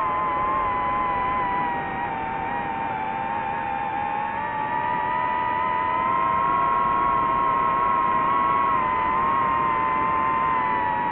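DJI FPV drone's motors and propellers whining steadily, the pitch dipping slightly about two seconds in and rising again around six seconds as the throttle changes.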